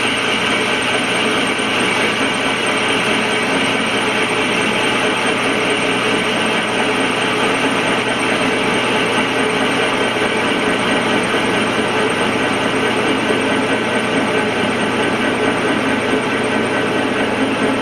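Metal lathe running steadily while a single cutting tool takes a cut across the edge profile of a small live-steam locomotive wheel held in the chuck.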